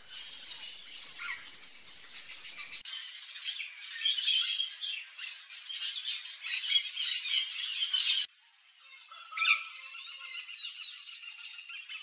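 Yellow-faced parrots calling: loud, harsh squawks repeated rapidly through the middle, ending abruptly. Near the end come whistled calls that rise and fall in pitch.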